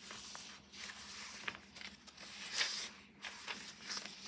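Paper pages of a handmade junk journal rustling as they are handled and turned, in several soft swells with the loudest about two and a half seconds in.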